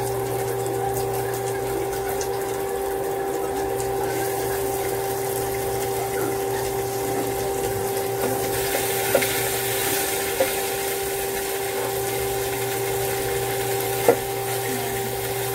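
Pork frying in hot oil in a pan: steady sizzling that grows louder about halfway through, over a steady hum. A few sharp clicks of the fork and spatula against the pan, the loudest near the end.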